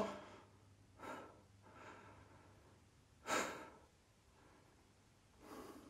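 A man's breaths, faint and noisy: one about a second in, a louder one a little past three seconds, and a faint one near the end.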